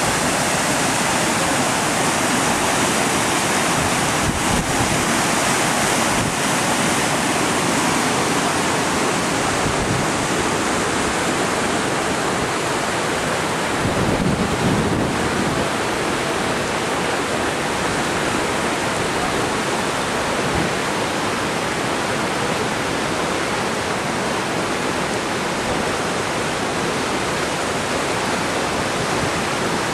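Whitewater rushing through the rapids of an artificial slalom kayak course: a loud, steady roar of churning water.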